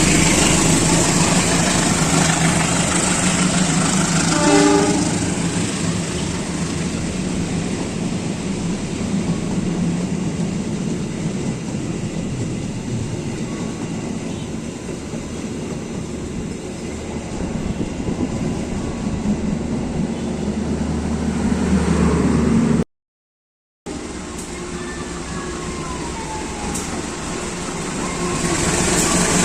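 A train running on the rails with a steady rumble, and a short horn blast about four seconds in. The rumble swells twice in the later part and breaks off completely for about a second in between.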